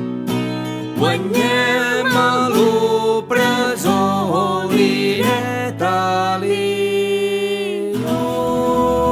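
Folk song: acoustic guitar strumming, then a sung melody over it from about a second in, settling on a long held note and a sustained closing chord near the end.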